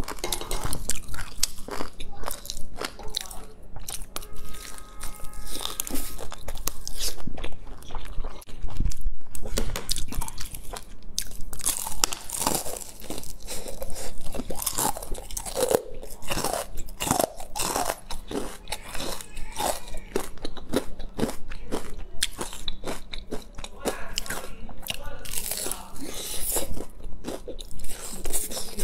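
Close-miked crunching of crispy deep-fried batter being bitten and chewed, a steady run of irregular crackly crunches.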